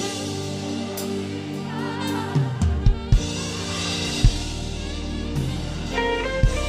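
Live worship band playing without vocals: held keyboard chords over bass, with a few loud drum hits in the middle and picked guitar-like notes coming in near the end.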